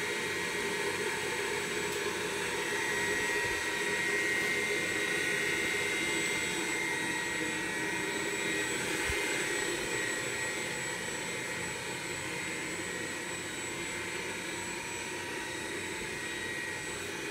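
VFD-driven three-phase spindle motor and belt drive of a converted Grizzly G0704 mill running steadily at about 1500 rpm (30 Hz): a steady whine with several high tones over the rush of the motor's cooling fan, a fan that wobbles noticeably. The sound grows a little fainter in the second half.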